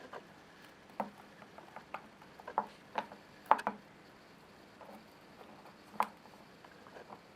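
Small irregular clicks and taps of a plastic inkjet ink cartridge being handled and pried apart, loudest about three and a half seconds in and again at about six seconds.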